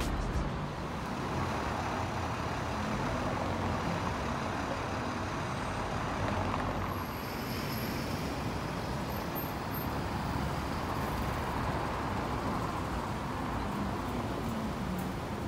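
City street traffic: a steady wash of passing vehicles and engines, with a double-decker tour bus going by about halfway through.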